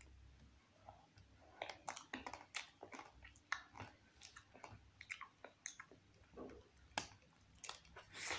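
Biting into and chewing a chocolate-coated ice cream bar: irregular small crackles and clicks of mouth sounds, with a sharper bite about seven seconds in and another at the very end.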